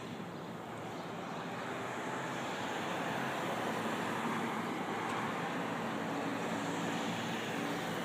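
Road traffic passing on the street: a vehicle's tyre and engine noise that swells about two seconds in and stays up.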